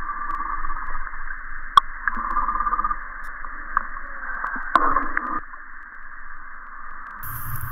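Tinny, radio-like sound with the lows and highs cut away, with sharp clicks about two seconds in and again near five seconds. It thins out about five and a half seconds in.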